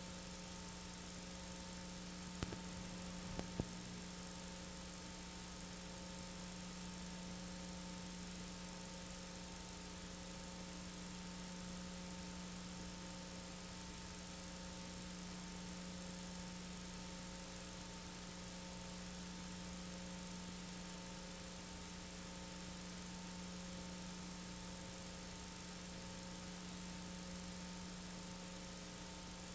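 Steady electrical mains hum with constant hiss, the sound of an otherwise silent home-movie film transfer. Two faint clicks come about two and a half and three and a half seconds in.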